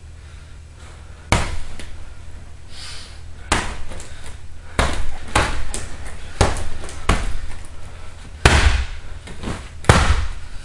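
Fists striking a hanging heavy punching bag: about eight hard thuds at an uneven pace, each with a short rattle after it. The last two hits are the loudest.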